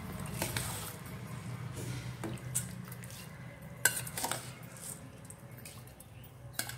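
Basmati rice going into a pan of boiling water, the water bubbling, with about five sharp clinks of metal against the pan.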